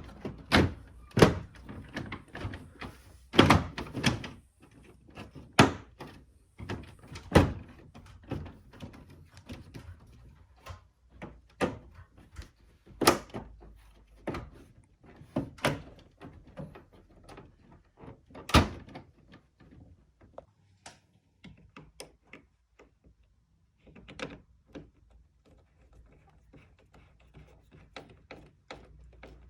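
Plastic parts of a Mitsubishi heat pump's indoor unit being knocked and clicked back into place during reassembly: irregular sharp knocks and thunks, several loud ones in the first twenty seconds, then fainter, sparser clicks.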